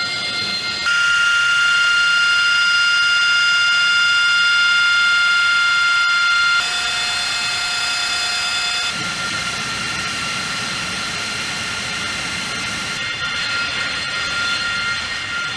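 AV-8B Harrier II's Pegasus turbofan engine running at idle on the ground: a steady high-pitched whine with several tones over a rush of jet noise. It shifts abruptly in loudness and pitch about a second in, again about six and a half seconds in, and once more near nine seconds.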